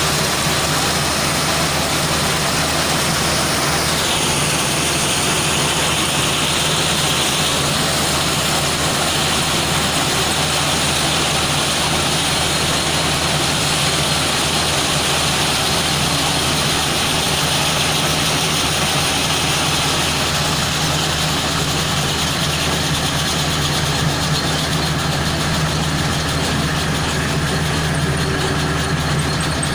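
Caterpillar loader's diesel engine running steadily with a deep, constant hum. A higher hiss comes in about four seconds in and fades out later.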